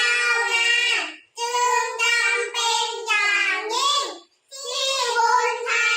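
Children singing, unaccompanied, in sustained high-pitched phrases broken by brief pauses for breath about a second in and again about four seconds in.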